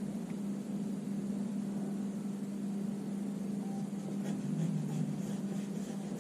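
A steady low hum throughout. In the second half, faint scratchy strokes of a colored pencil sketching on drawing paper.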